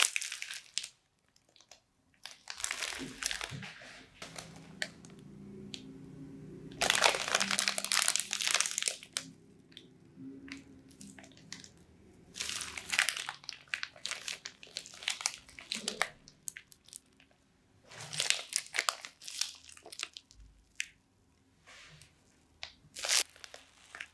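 Clear plastic bag crinkling and wet slime crackling as a slime-soaked mesh sponge inside the bag is squeezed, in bursts of a second or two with short pauses between them.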